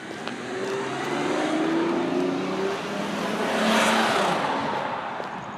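A car driving past close by, its engine note rising as it speeds up, growing loudest about four seconds in and then fading away.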